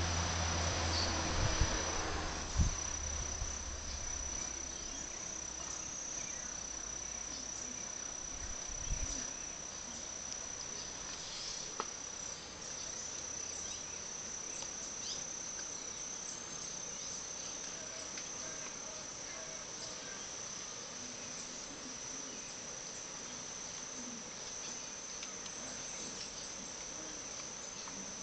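Steady high-pitched insect trill running on without a break. In the first few seconds a low hum and a few sharp knocks sit under it.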